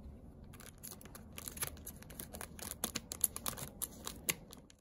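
Scissors snipping through a silvery foil bag wrapped around a plant pot, with the bag crinkling: a run of short, sharp snips and crackles starting about half a second in.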